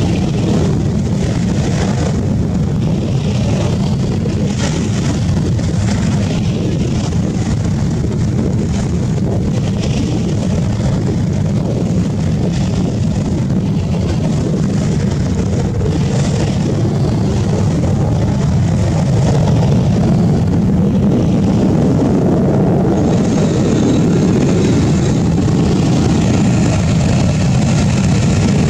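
F-35B's F135 jet engine and shaft-driven lift fan roaring steadily as the jet holds a vertical hover, the sound growing slightly louder in the last third.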